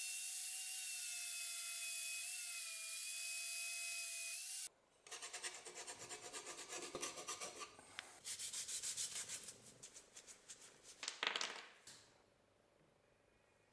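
Angle grinder running with a steady high whine, cutting off abruptly about a third of the way through. Then quick back-and-forth rubbing strokes by hand on the steel cleaver blade, several a second in uneven bunches, stopping about two seconds before the end.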